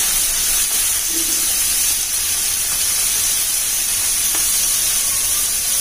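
Sliced onions, green chillies, curry leaves and ginger-garlic paste sizzling in hot coconut oil in a large pot, a steady even hiss of frying.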